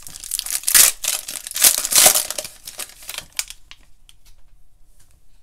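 Foil wrapper of a Panini Donruss basketball card pack being torn open and crinkled by hand: loud crackling and ripping for about three and a half seconds. After that come faint light ticks as the cards are handled.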